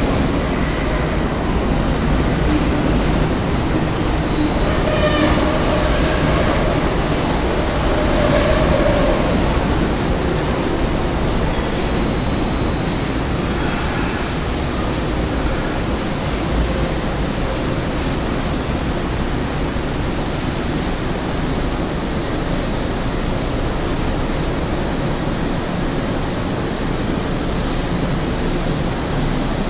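Kintetsu electric train pulling slowly into an underground station platform: a steady rumble of wheels on rail, echoing off the platform walls, with short high squeals about halfway through as it slows.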